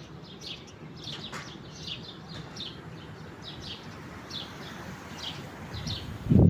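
Small birds chirping: a steady run of short, high chirps, a few each second, over a faint low background noise.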